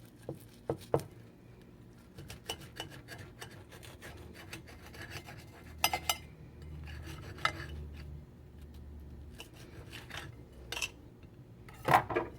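A knife sawing through a toasted grilled ham and cheese sandwich: rasping scrapes through the crisp bread, with occasional sharp clicks of the blade, the loudest near the end.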